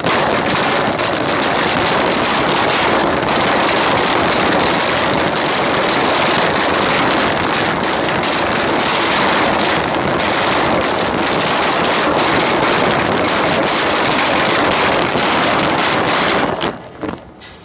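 Wire shopping cart rattling loudly as it is pushed across asphalt, heard from inside the basket: a dense, steady clatter of wheels and wire that stops abruptly near the end.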